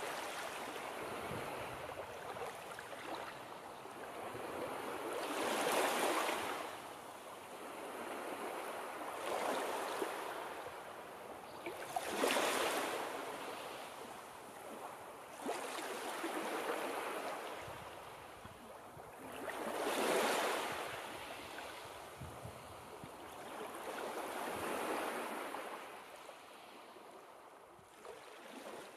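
Sea waves breaking and washing up a beach. The surf swells and falls back about every three to four seconds.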